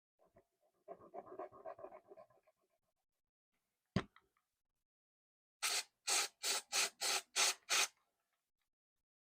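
Seven quick abrasive rubbing strokes on a big-bait lure as it is cleaned up, about three a second. Before them come soft scratchy handling scrapes and a single sharp click about four seconds in.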